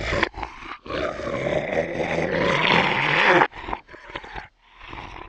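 Monster zombie roar sound effect: a short snarl, then one long raspy roar lasting nearly three seconds, followed by a few shorter growls that fade out.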